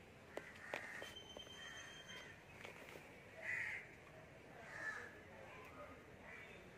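Several faint, short bird calls, about a second apart, the loudest one in the middle, with a couple of light clicks near the start.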